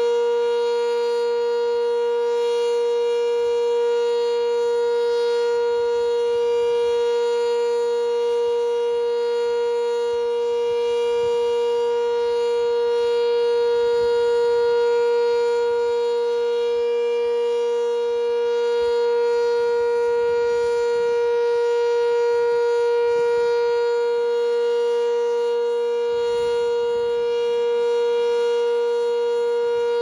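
Sentry 10V electromechanical outdoor warning siren sounding a steady alert tone, holding one unchanging pitch, loud, with only slight swells in level.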